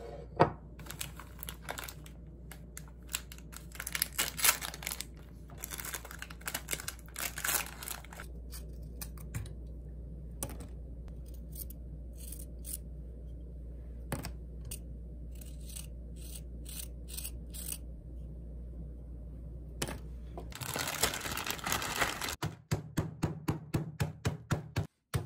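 Plastic Oreo cookie wrappers crinkling and tearing open and the cookies rustling into a plastic zip bag. Near the end this gives way to a rolling pin striking the bagged cookies in a quick, even series of knocks, about three or four a second, as it crushes them.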